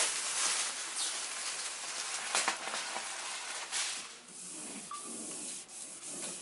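A large sheet of self-adhesive wallpaper rustling as it is handled and pressed onto the wall, with a few louder swishes of paper.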